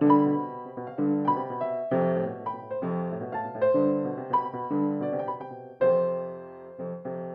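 Solo piano music, accompanying a silent film: a lively run of struck notes and chords, ending with a chord about six seconds in that is left to ring out and fade.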